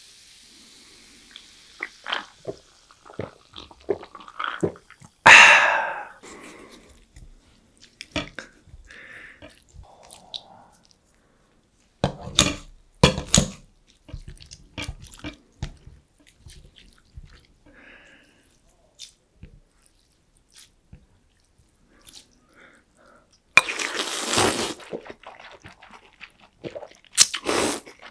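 Close-miked eating: bites and chewing of cold noodles and a crunchy breaded pork cutlet, as scattered clicks and crunches. Louder bursts come about five seconds in, around twelve to thirteen seconds, and near the end.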